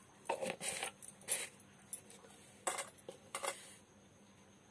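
Steel kitchen utensils clinking and scraping against a steel mixer jar, in about four short bursts.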